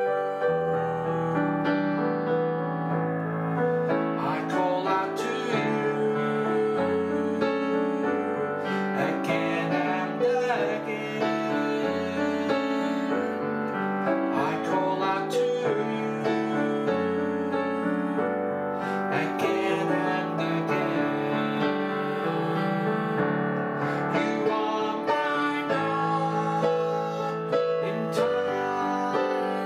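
Yamaha Clavinova digital piano played in a piano voice: a steady, flowing instrumental piece of full chords that change about every second.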